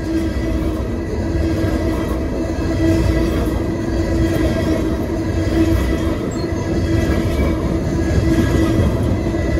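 Coal hopper cars of a freight train rolling past at close range: a steady rumble of steel wheels on rail, with a faint high wheel squeal.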